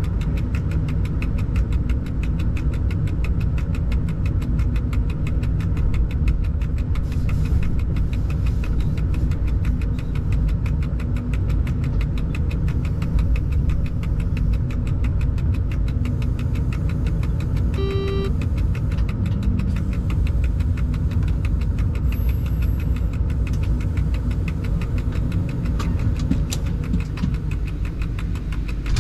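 Steady machinery noise inside a freight locomotive's cab: a low rumble with a fast, even pulsing, and one short electronic beep about 18 seconds in.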